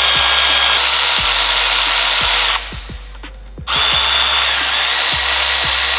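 Cordless electric ratchet running with a steady high whine as it runs down cam retainer plate bolts. It runs in two long runs with a short stop a little past halfway.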